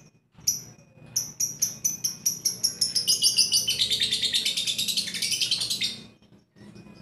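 Lovebird chattering: a run of sharp high chirps that speeds up into a fast continuous trill for about three seconds, then stops abruptly about a second before the end.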